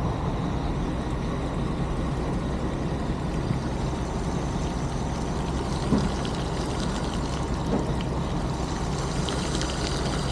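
Diesel fuel running from a pump nozzle into a truck's aluminium fuel tank: a steady rushing over a low rumble, with a brief knock about six seconds in.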